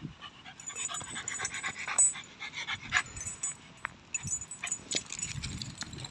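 Small dogs panting fast in quick, rapid breaths, worked up by a game of fetch.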